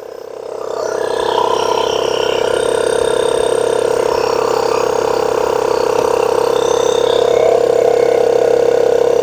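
Vtoman X7 jump pack's built-in air compressor running under load as it inflates a small tyre, a steady, fast-pulsing buzz that grows louder in the first second or so, with faint high tones shifting above it. The compressor is failing: it has started to smoke, and the owner calls these tone changes weird and unusual for it.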